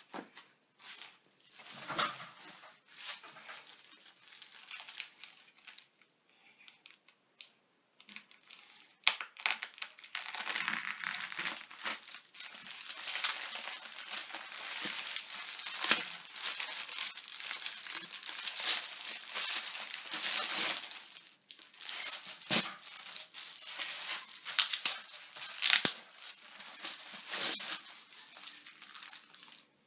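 A parcel's packaging being crinkled and torn open by hand: scattered rustles at first, then from about nine seconds in a busy run of crinkling with several sharp rips.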